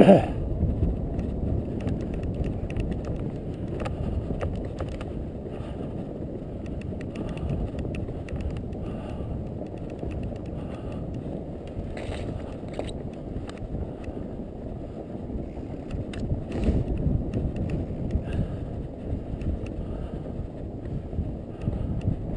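Fat bike riding over snow: a steady low rumble of wind on the microphone and tyre noise, with scattered light clicks and rattles from the bike and a knock right at the start.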